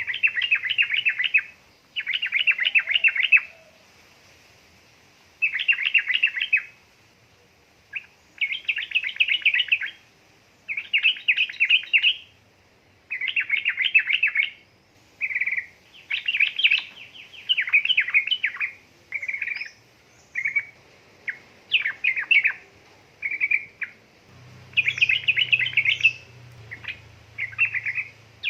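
Yellow-vented bulbul (trucukan) singing continuously, in phrases of rapid chattering notes about a second long, one after another every second or two. A faint low hum joins near the end.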